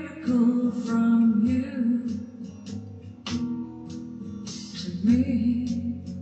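A slow song: a woman singing held notes over a plucked guitar.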